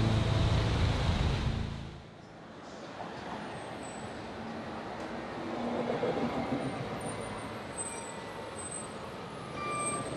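Background music with a heavy low end fades out about two seconds in. After that comes steady outdoor street and traffic noise, with vehicle sound swelling and fading near the middle.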